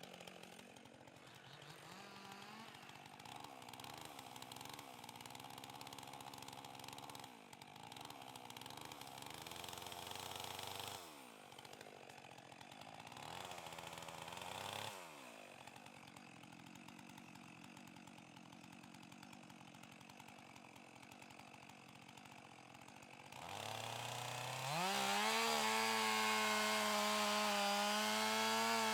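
Two-stroke chainsaw engine running at moderate revs, its pitch dropping sharply twice. Near the end it revs up to a loud, steady full-throttle run.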